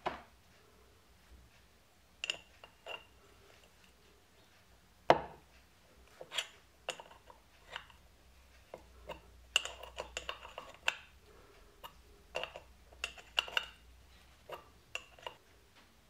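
Metallic clicks and clinks of an open-end spanner fitting onto and turning a small brass hex fitting on an aluminium coffee pot, with handling knocks of the pot; one sharper knock about five seconds in, and quick runs of clinks in the second half.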